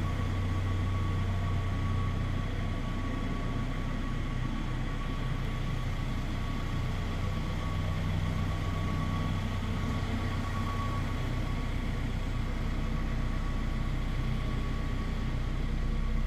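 Schäffer 9530T wheel loader's diesel engine idling steadily: a low, even drone with a thin high whine that fades out about two-thirds of the way in.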